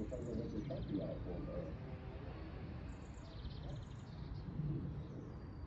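Small songbirds chirping and trilling in short phrases, once near the start and again about three seconds in, over a low steady background hum.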